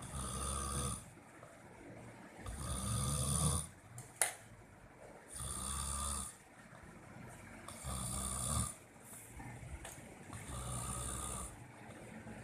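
A person snoring: five snores at an even pace, about two and a half seconds apart, with one sharp click between the second and third.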